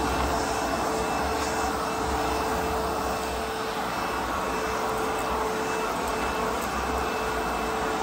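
ProTeam Super Coach backpack vacuum running steadily: a rush of suction with a steady motor tone, as its floor tool is worked over carpet.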